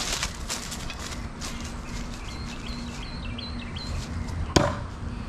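Footsteps crunching through dry leaves, a small bird chirping in a quick repeated run, then one sharp thunk about four and a half seconds in: a thrown bowie knife sticking into a wooden post.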